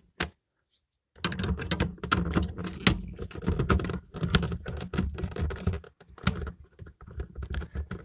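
Screwdriver and fingers levering push-on spade lugs off metal switch terminals inside a plastic shower casing: a dense, irregular run of small clicks, scrapes and knocks, starting about a second in.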